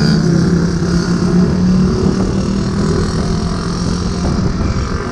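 Motorcycle engine running steadily at cruising speed, with wind and road noise rushing over the microphone, picked up by a GoPro Hero 5 Black's built-in microphone with no external mic.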